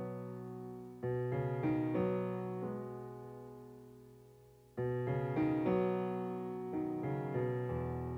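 Slow solo piano music: phrases of struck notes and chords, each left to ring and fade away, with a new phrase starting about a second in and another near five seconds, ending on a low held bass note.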